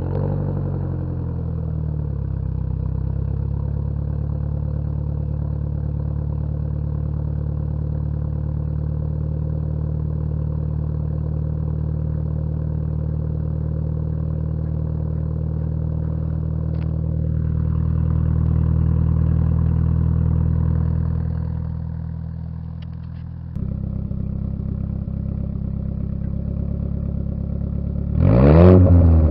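Nissan 200SX's CA18DET turbocharged 1.8-litre four-cylinder, with a T28 turbo and a 3-inch exhaust, catching on the starter and settling into a steady idle. The idle sags briefly, then picks up suddenly. About a second from the end the engine is revved once, up and back down.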